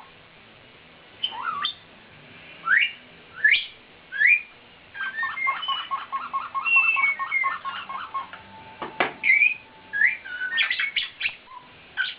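Congo African grey parrots whistling and squawking: about five quick upward-sweeping whistles, then a fast run of short repeated squeaky notes and a held whistle, typical of their mimicry of a squeaky toy phone.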